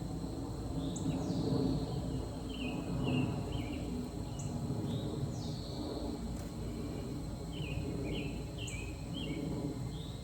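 A bird singing the same short phrase over and over, about every three to four seconds: a quick high downward sweep followed by a few shorter falling chirps, over a steady outdoor background rumble.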